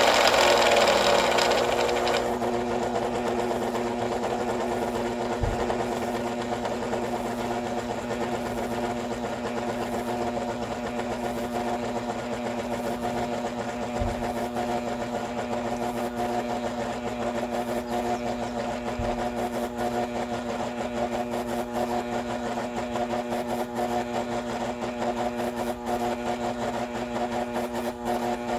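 A vintage Proctor Silex blender's small electric motor being run to burnout. A loud whir slows and drops in pitch over the first two seconds, then settles into a steady, lower hum. Three faint low knocks come partway through.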